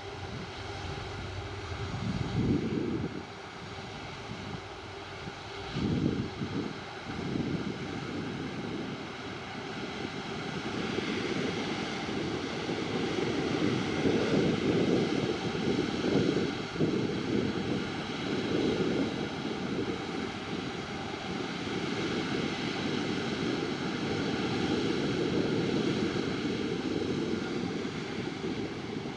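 Airbus A330-300 twin-engine jet airliner's engines running with a steady whine over a broad rush, swelling louder about halfway through, with a few low gusty rumbles early on.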